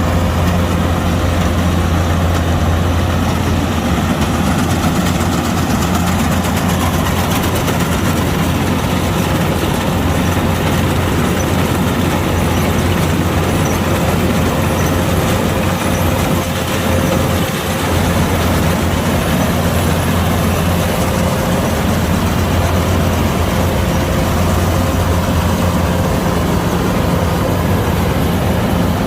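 Kubota DC-105X combine harvester running steadily: a deep diesel engine drone with machinery noise and a faint steady whine. The level dips briefly a little past halfway.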